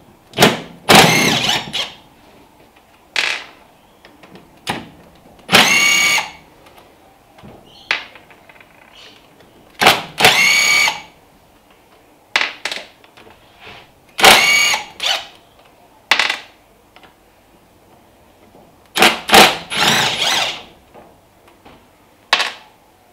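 Cordless drill-driver undoing the bolts on the gearbox end housing of a Carbon 12K winch: about seven short runs of a whirring motor, each around a second long, with pauses between. Light clicks and knocks from handling the parts fall in the gaps.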